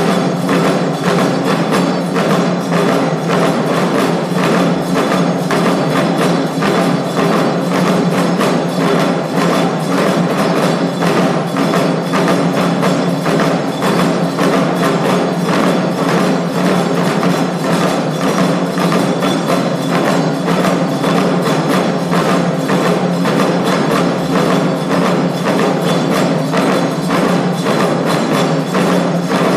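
Lion-dance (shishimai) music: a taiko drum beaten in a fast, steady rhythm, with sharp wooden clicks and a steady ringing tone held underneath.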